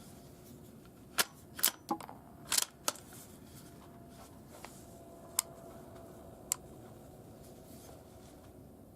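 Sharp clicks and clacks from a suppressed bolt-action .22 LR rifle firing subsonic rounds and having its bolt worked. There is a quick cluster of six about a second in, then two single clicks a few seconds later.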